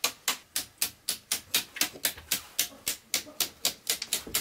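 Miniature circuit breakers in a home breaker panel being flipped one after another, a quick, even run of sharp clicks about four a second that stops near the end. The breakers are being switched while tracing a fault that keeps tripping the earth-leakage breaker.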